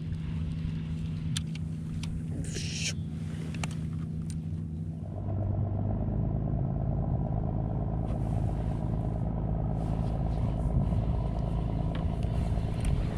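Spinning reel being wound in to bring up a hooked fish, with scattered clicks and a steady low hum for the first few seconds. Under it runs a steady low rumble that grows denser and a little louder about five seconds in.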